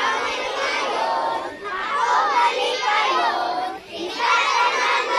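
A group of young children singing together in phrases, with two brief pauses between lines.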